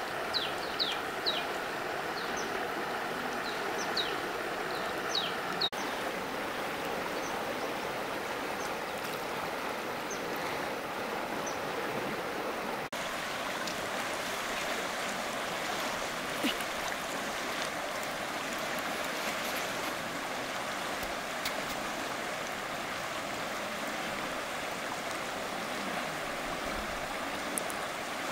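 Shallow river running over a rocky bed, a steady rushing sound of flowing water, with a few short high chirps in the first few seconds.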